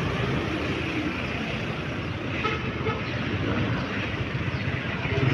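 Street traffic noise with vehicle engines running, including a motorcycle-sidecar tricycle passing close by.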